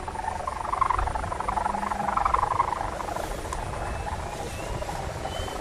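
Kite hummer (sendaren) on a high-flying kite droning in the wind: a steady, wavering hum, with wind rumbling on the microphone.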